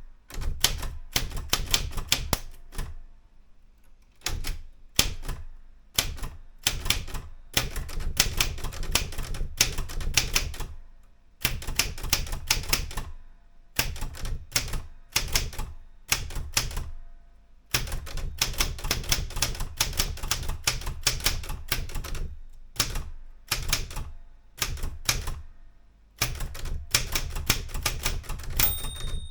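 Erika 105 manual typewriter being typed on: runs of quick keystroke clacks with short pauses between them. A short ringing tone sounds near the end.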